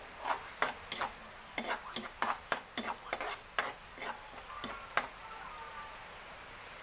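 A ladle scraping and clinking against a metal wok as minced garlic and onion are stirred in hot oil, with about fifteen quick strokes under a faint sizzle. The stirring stops about five seconds in, leaving only the sizzle.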